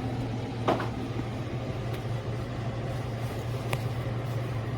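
KGOGO portable air conditioner running: a steady low hum with even fan noise, and two short clicks about a second in and near the end.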